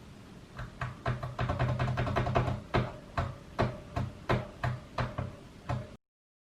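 DIY modular synth tone switched on and off by MIDI keyboard key presses, with a click at each press. The note is always the same low pitch, because the Arduino MIDI converter sends only a gate and no pitch. It starts as a held note, then turns into short, evenly spaced notes about two or three a second, and cuts off suddenly near the end.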